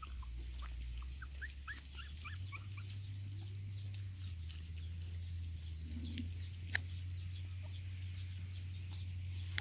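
A litter of young puppies eating from a shared bowl, giving a quick run of short high squeaks in the first few seconds.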